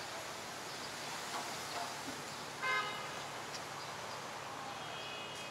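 Steady city street traffic noise, with one short car-horn toot about halfway through and a fainter horn-like tone near the end.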